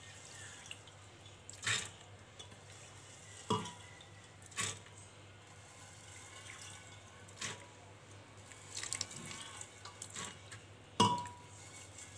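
Handfuls of wet, soaked green gram (mung beans) dropped into a metal pressure-cooker pot: about six short, scattered patters and clinks. The last and loudest, near the end, rings briefly on the metal.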